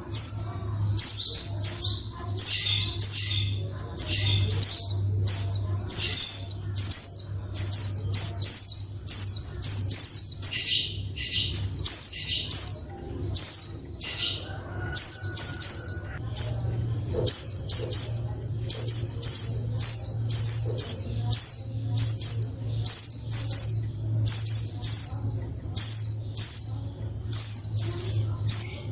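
Female white-eye (pleci, Zosterops) calling: short, high, falling chirps in quick clusters of two to four, repeated about once a second without a break. A faint steady low hum lies underneath.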